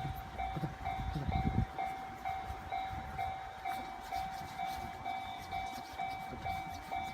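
Japanese level-crossing warning bell ringing steadily, about two strikes a second. A low rumble sounds under it for the first second and a half.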